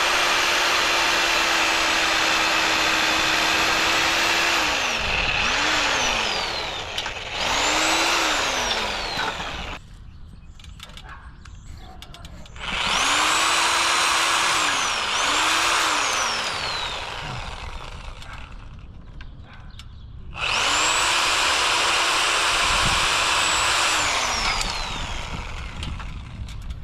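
Reciprocating saw with a pruning blade cutting through tree branches in three long runs. Its motor whine holds steady while the trigger is held and falls away each time it is let off, with a few short blips of the trigger in between.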